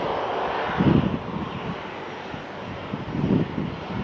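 Jet airliner engines of a Boeing 737 under pushback running with a steady rushing whine, with two louder low rumbles, one about a second in and one near the end.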